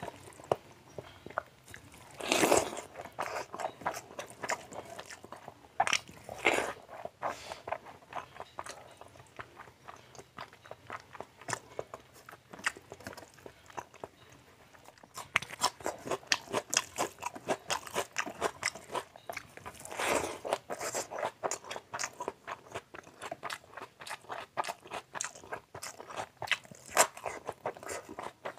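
Close-miked wet chewing and mouth smacking of a man eating rice with fatty mutton and fish curry by hand: fast, continuous sticky clicks, with a few louder wet bursts along the way.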